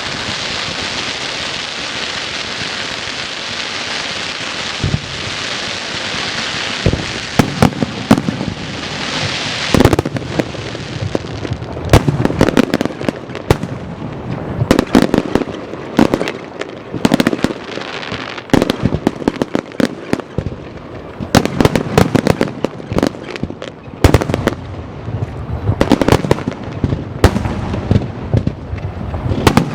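Aerial fireworks display. A steady high hiss runs for the first ten seconds or so. Then come clusters of sharp bangs from exploding shells, several a second, in waves.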